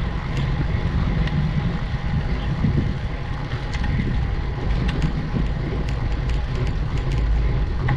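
Steady low wind noise on the microphone of a camera riding along on a bicycle climbing slowly uphill, with a few faint ticks.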